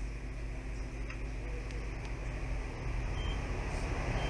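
Steady low hum and hiss of room noise that swells a little past the middle, with a few faint clicks of multimeter probes being set on a fuse. A faint high steady tone comes in near the end.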